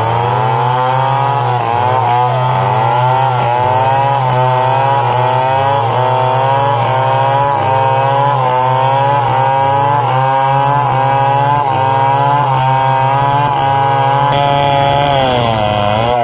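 Stihl 070 two-stroke chainsaw running at full throttle while ripping a log lengthwise into boards. Its pitch sags and recovers about once a second as the chain loads up in the cut, and near the end it bogs lower once before picking back up.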